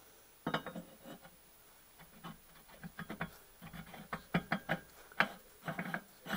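Irregular metal clicks and light knocks, growing busier after the first couple of seconds, as the steel gland of a hydraulic tilt cylinder is pushed into and drawn out of the honed cylinder barrel to test its fit.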